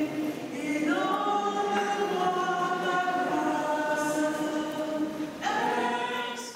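A choir singing a hymn in long, held notes, the voices moving to new notes about a second in and again near the end.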